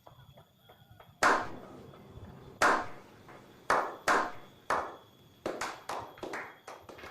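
A series of about ten sharp knocks at irregular intervals, each dying away quickly, coming closer together in the second half.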